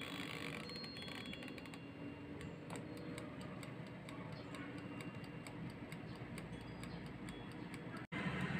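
Air fryer's mechanical timer dial ticking steadily, several ticks a second, after being wound. The sound cuts out briefly near the end.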